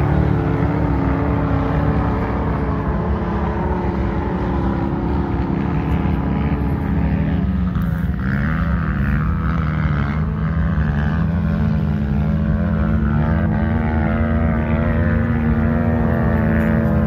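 Off-road vehicle engines running steadily at the dunes, their pitch shifting about halfway through as the speed changes, with a wavering higher engine tone in the second half.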